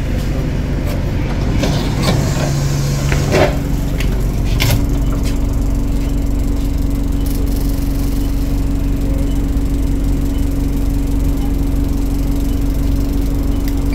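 Alexander Dennis Enviro200 single-deck bus's diesel engine idling steadily while the bus stands, with a few clicks and knocks in the first few seconds. A steady hum joins about three and a half seconds in.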